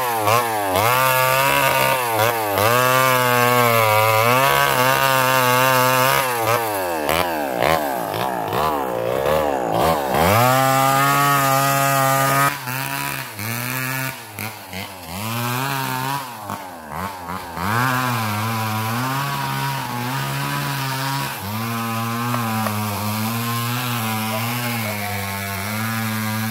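Husqvarna 395XP two-stroke chainsaw cutting through branches, the engine revving up and down under load. About halfway through it drops back to idle with a few uneven throttle blips, then idles steadily.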